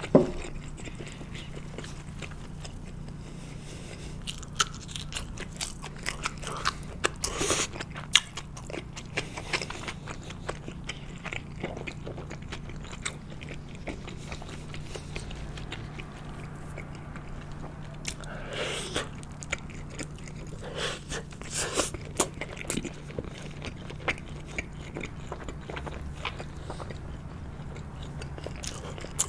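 Close-miked eating of sushi: chewing with scattered wet mouth clicks and smacks at irregular intervals, over a steady low hum.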